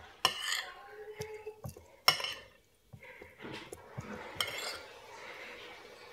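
Metal fork and spoon scraping and clinking against a plate while mixing rice, with three sharper clinks.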